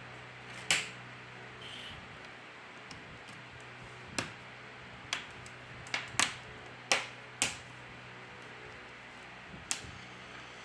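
Small tools and phone parts clicking and tapping during smartphone reassembly: about eight sharp clicks, scattered and clustered in the middle, over a steady low hum.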